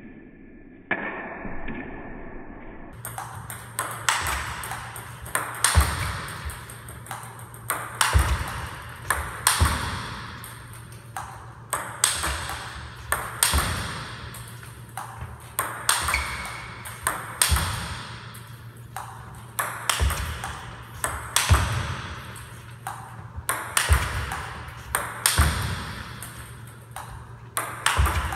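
Table tennis forehand smashing drill: the ball clicks sharply off the paddle and the table in quick succession, with a hard smash about every two seconds.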